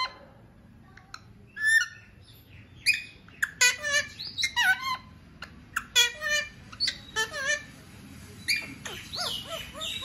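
Alexandrine parakeet vocalizing in a string of short squawks and chirps, each bending in pitch. The calls begin about a second and a half in.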